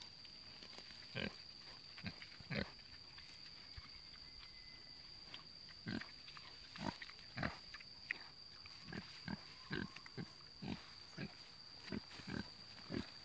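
Free-ranging domestic pig grunting in short, irregular grunts while it forages in grass, the grunts coming faster in the second half. A steady high-pitched whine runs underneath.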